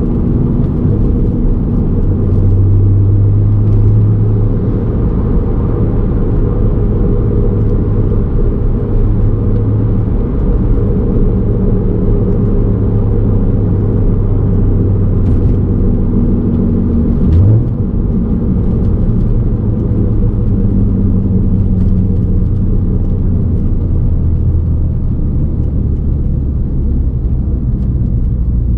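Heard inside the cabin of a moving Mk5 Volkswagen Golf R32: a steady low rumble from a worn hub bearing, mixed with road and engine noise. About two-thirds of the way through the sound briefly dips and its pitch sweeps up.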